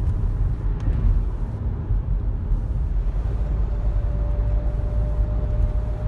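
Car driving on the road, heard from inside the cabin: a steady low rumble of engine and tyre noise. A faint steady whine joins about halfway through.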